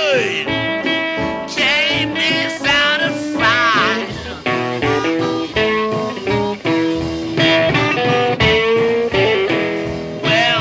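Early-1950s blues recording playing: a band passage led by guitar, with arching, bending high notes over the first few seconds.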